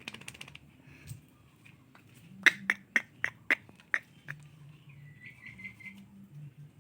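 Small dog giving a quick run of short, high yips, about seven in under two seconds, followed by a brief pulsing whine.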